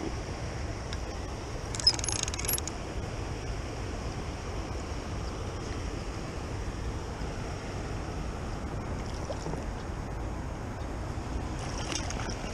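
Steady low outdoor rumble, with a short burst of high-pitched clicking about two seconds in and a few faint clicks near the end.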